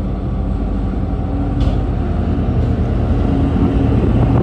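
Diesel locomotive of the iron ore train approaching slowly, its engine running with a steady low rumble that grows louder as it draws near.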